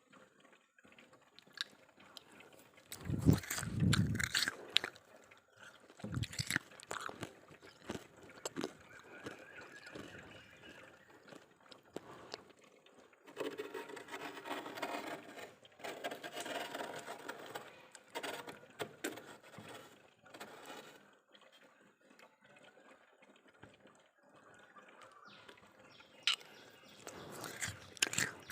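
Freezer frost being scraped with a spoon: scattered scrapes and clicks, a heavy thump about three seconds in, and a longer spell of rough, steady scraping in the middle.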